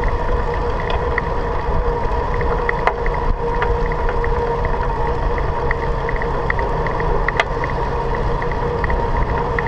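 Bicycle rolling along an asphalt path, heard from a handlebar-mounted camera: steady tyre and wind rumble with a constant hum, a light ticking a few times a second, and two sharp clicks, about 3 seconds in and again about 7 seconds in.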